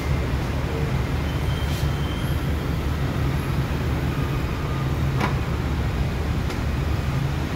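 Steady low vehicle rumble, with a short click about two seconds in and a sharper one about five seconds in.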